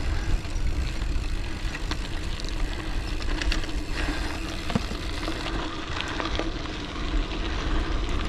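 Terravail Rutland 650b x 2.1 gravel tyres rolling and crunching over a dry dirt trail as the bike coasts downhill, under a low rumble and with scattered small clicks and rattles from the bike.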